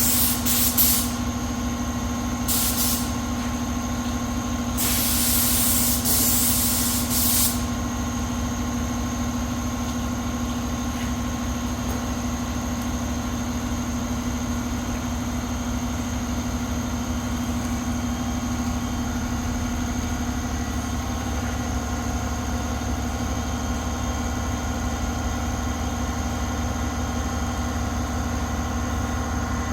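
A workshop machine running with a steady hum. Three bursts of compressed-air hiss come in the first eight seconds, the last and longest lasting about two and a half seconds.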